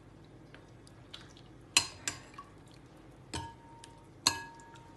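Glass mixing bowl clinking as a utensil knocks against it while chicken pieces are lifted out: four sharp clinks, the last two ringing briefly.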